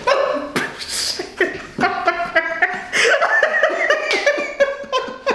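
A woman's startled, wordless laughter and exclamations in reaction to a sudden chiropractic neck adjustment.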